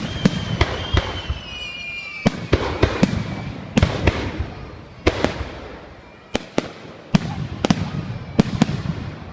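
Aerial fireworks bursting in a rapid, irregular series of about fifteen sharp bangs with crackling between them. A high whistling tone sounds through the first couple of seconds.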